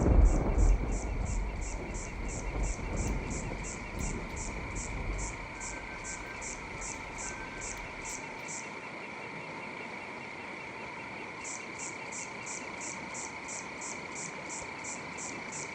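Night ambience of crickets chirping in a steady rhythm of about three to four chirps a second, stopping for a few seconds around the middle and then resuming, over a steady high drone. A low rumble underneath fades away in the first few seconds.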